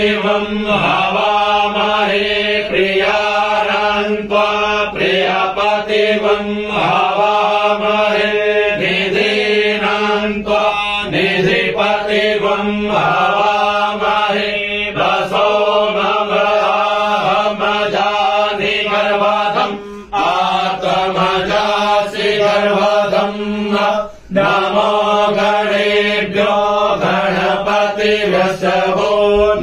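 Men chanting Sanskrit mantras together in a steady, held recitation, with two brief breaks about two-thirds of the way through.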